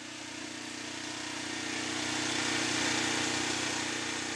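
An engine humming steadily, with a rushing noise that swells to a peak about three seconds in and then eases off.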